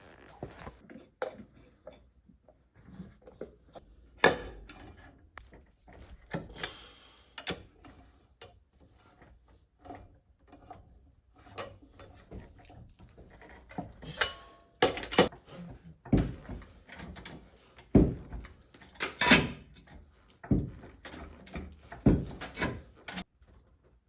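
Irregular metallic clanks, clicks and scrapes of hand work on a rear brake caliper as a parking brake cable end is pulled down and worked into its bracket without the retaining clip. The knocks come in uneven clusters, the sharpest about four seconds in and again in the second half.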